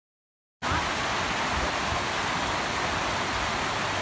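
A creek rushing over rocks: a steady, even rush of water that cuts in suddenly about half a second in, after dead silence.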